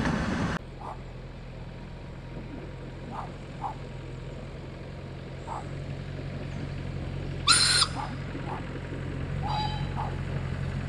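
Clatter of a passing narrow-gauge train cuts off half a second in, giving way to the steady low engine hum of an approaching narrow-gauge railcar, growing slowly louder. About seven and a half seconds in there is one short, loud whistle blast; birds chirp now and then.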